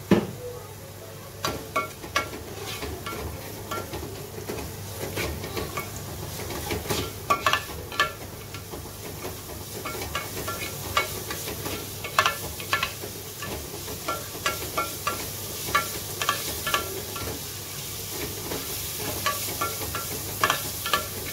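Chopped onions sizzling in hot coconut oil in a non-stick pot as they are sautéed until soft, while a spoon stirs them, scraping and clicking against the pan again and again. There is a sharp knock at the very start.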